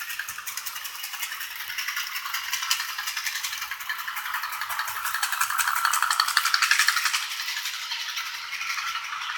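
Model train running fast along the layout track: a rapid, dense clicking rattle of wheels and running gear on the rails. It grows louder about five to seven seconds in as the cars pass close by.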